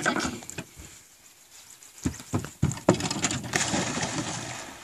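A few footsteps thudding on wooden dock boards, then a big splash as a child jumps into the pond, the rush of water fading away over the next second and a half.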